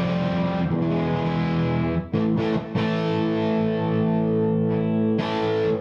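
Electric guitar, a Gibson Les Paul, played through a JMI Vox AC30 Top Boost amp into a cab with Celestion Blue Alnico speakers. Chords ring and sustain and are struck again several times, with two brief breaks about two seconds in, then the sound is choked off suddenly at the end.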